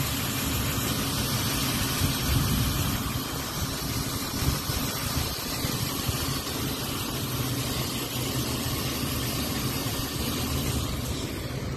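Car engine idling steadily under the open hood.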